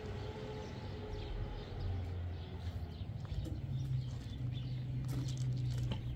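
Footsteps crunching on loose gravel, irregular short crunches over the second half, above a steady low drone from an unseen source that rises slightly in pitch about halfway through.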